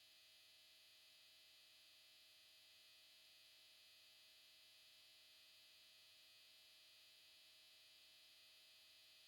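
Near silence: a faint, steady hiss with a trace of hum.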